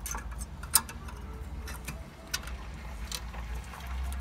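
A few light, sharp clicks and taps from a rear disc-brake caliper and new brake pads being handled and seated by hand, over a steady low rumble.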